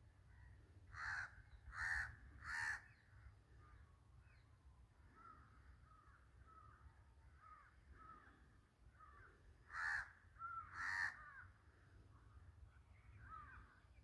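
A crow cawing: three harsh caws in quick succession, then two more about eight seconds later, with softer bird chirps between them.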